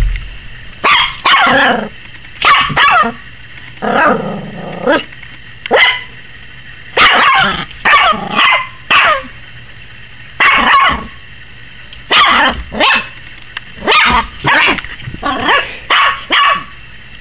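Yorkshire terrier puppy barking like crazy at the camera, which the owner thinks she is scared of: short, high-pitched barks in bursts of one to three with brief pauses, one drawn-out lower bark about four seconds in.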